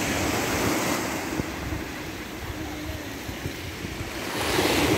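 Small waves washing up over a dark pebbly beach and drawing back, with wind rumbling on the microphone. A louder wash comes in near the end.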